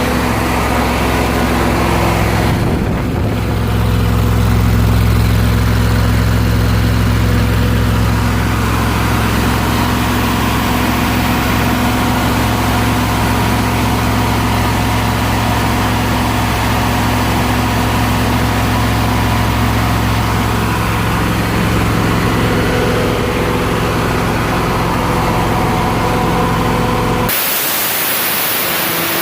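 Ford 302 small-block V8 of an engine-driven air compressor running steadily. Near the end the engine note drops away for about two seconds under a high hiss.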